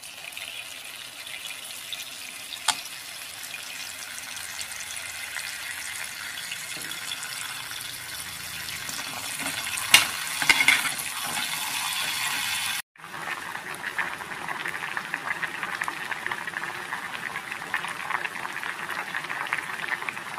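Tap water pouring onto raw in-shell peanuts in a metal pot, with a few sharp knocks. After a sudden cut about thirteen seconds in, the peanuts boiling in a pot of water, bubbling with a crackling, fluttering sound.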